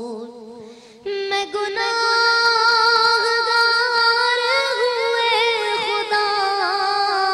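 A woman singing a devotional naat, holding long notes with wide vibrato. One phrase fades out, and she begins the next about a second in.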